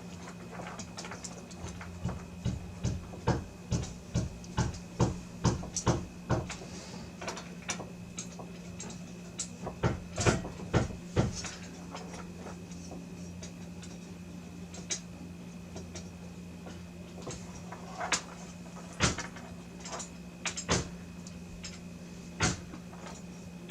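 Irregular clicks and knocks of graphics cards and USB riser cables being handled and plugged into riser adapters, coming in clusters, over a steady low hum.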